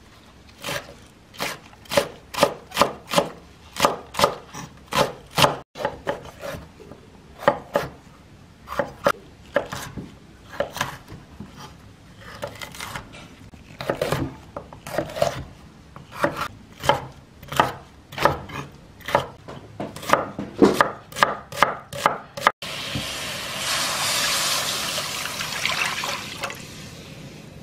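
Chef's knife chopping green onion and bell pepper on a wooden cutting board: runs of quick, sharp knocks of the blade hitting the board. About 23 seconds in, water is poured into a nonstick frying pan, a steady splashing hiss that fades away.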